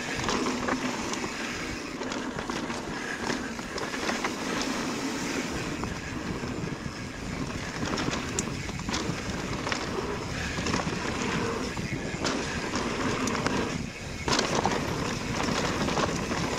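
Mountain bike rolling fast down a dirt singletrack: steady tyre noise over dirt and loose stones, with frequent small clatters and knocks from the bike over bumps.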